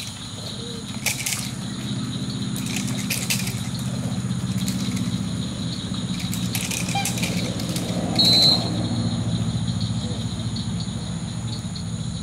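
Steady low hum with steady high insect-like tones over it, broken by a few sharp cracks in the first seven seconds and a short, high whistle blast about eight seconds in.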